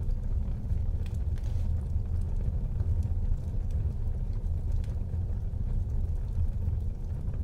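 Wood fire burning in a fireplace: a steady low rumble of flames, with a few faint crackles and pops.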